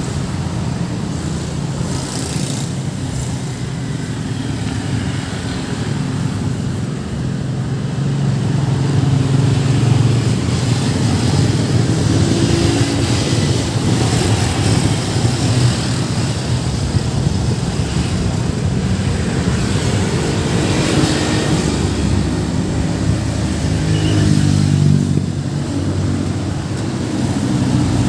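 Road traffic passing close by: car and motorcycle engines running steadily, growing louder as vehicles pass about a third of the way in and again near the end.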